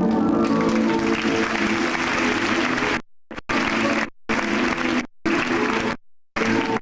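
Audience applause over backing music with steady held notes. The sound drops out to silence several times in the second half.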